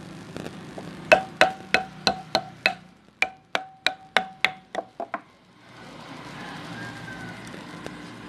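Hammer tapping on the end cover of a rewound electric fan motor during reassembly: about fourteen sharp, ringing metal taps in two quick runs, roughly three a second.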